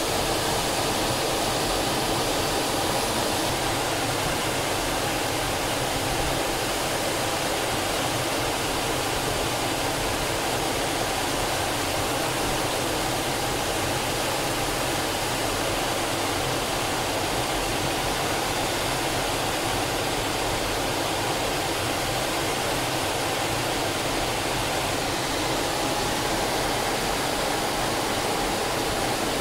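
Cockpit noise of an Aero L-39 Albatros jet trainer in flight: its AI-25TL turbofan and the rushing airflow make a steady, even rush with a faint whine.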